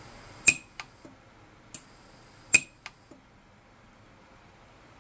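Orion 150s micro pulse-arc welder firing short weld pulses into a platinum ring to fuse in platinum fill wire. Each pulse is a sharp snap: the two loudest come about half a second and two and a half seconds in, each followed by fainter clicks. A faint high whine accompanies the firing and stops about three seconds in.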